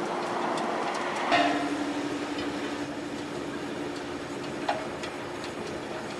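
Iron-melting cupola furnace running with a steady rush of noise and a low hum. About a second in, a sharp metallic clank rings on briefly, and a lighter clink comes near five seconds.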